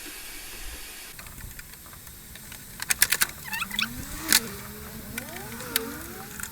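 Wire being cut and pulled out of a mobile air conditioning unit: a cluster of sharp clicks about three seconds in, then squeaky creaks rising and falling in pitch as the wire drags free.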